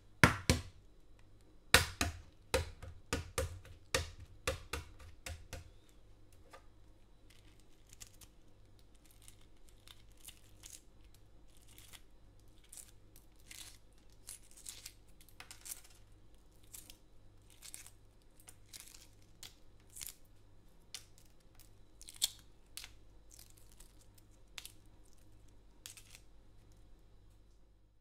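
Hard-boiled eggshell cracking in a quick run of sharp taps during the first six seconds. The shell is then peeled off the egg in small, quieter crackles and tearing sounds, scattered a second or so apart.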